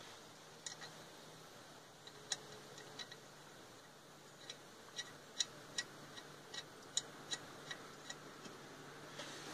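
Light metallic taps and clicks against the steel wheel's lug nuts, each a short ringing tick. They are sparse at first, then come at about two or three a second over the second half.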